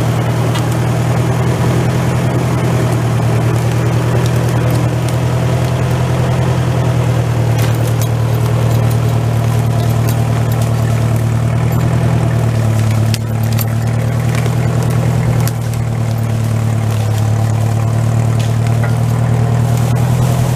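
Massey tractor engine running steadily under load as it drags a felled ash log out of the woods, its note dipping briefly about two-thirds of the way through.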